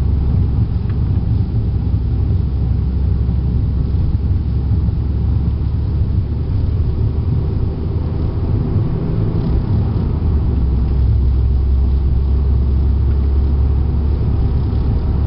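APR-tuned VW Golf GTI Mk6 with a K04 turbo and modified 3-inch downpipe and exhaust, driven around a race track and heard from inside the cabin: a loud, steady low rumble of engine, exhaust and road noise. It eases slightly about halfway through.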